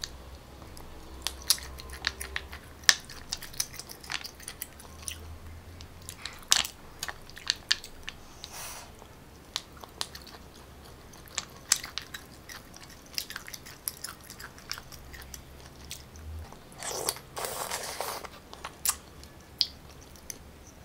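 Close-miked chewing and biting of garlic-butter sautéed sea snails, with many short sharp clicks scattered throughout and a longer noisy stretch of about a second near the end.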